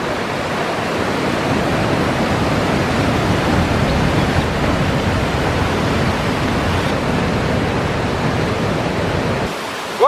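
Steady rush of large ocean waves breaking on a big swell. It drops away abruptly shortly before the end.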